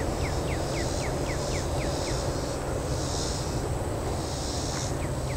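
Rural outdoor ambience: a bird gives a quick run of short falling chirps, about four a second, for the first two seconds and again near the end, over insects buzzing in swells and a steady low rumble.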